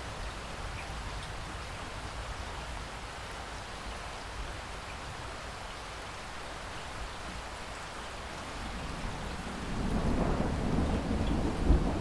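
Steady rain falling. About nine seconds in, a low rumble swells up under it and the sound grows louder.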